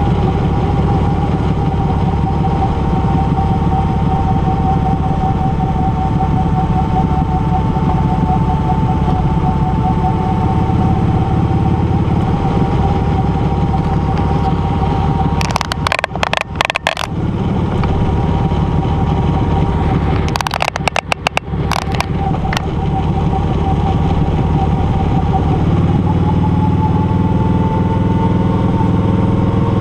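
Touring motorcycle running steadily at road speed. Twice, a little past the middle, the sound briefly turns choppy and cuts in and out.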